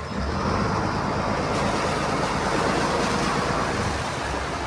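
Boat engine running with a steady low rumble under a loud rushing noise, which swells just after the start.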